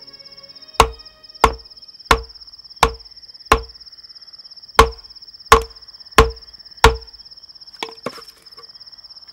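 Nagada drum struck slowly with a single stick, about ten strokes at roughly one every two-thirds of a second, each with a short ringing tone, pausing once midway and ending with two softer strokes. A steady high cricket chirr runs underneath.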